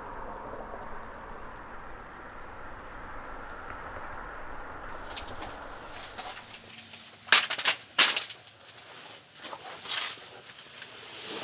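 A steady rushing noise, which cuts off abruptly. Then come a few sharp knocks and clinks of objects being handled; the loudest two are close together about seven to eight seconds in.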